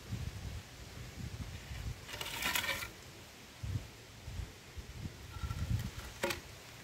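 Wooden plank scraping and dragging over gritty concrete as it is levered aside, with one longer scrape about two seconds in and a sharp knock near the end, over low buffeting of wind on the microphone.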